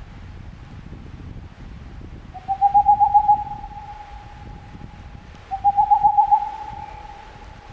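An owl calling twice, about three seconds apart. Each call opens with a quavering hoot and settles into a long, steady, fading note, over a low steady background rumble.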